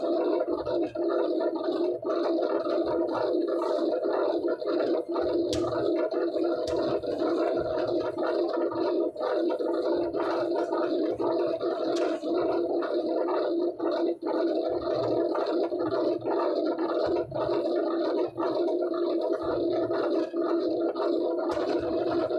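Steady, rough machine drone, with frequent irregular light knocks and slaps as large corrugated board sheets are flipped and laid down on a pasting table.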